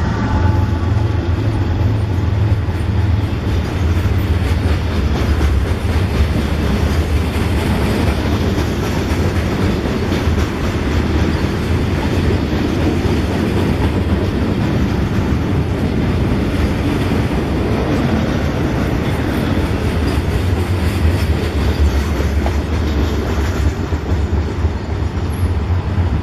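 A train passing close by: a steady, heavy rumble of wheels on the rails with some clickety-clack over the joints. A wheel squeal fades out at the very start.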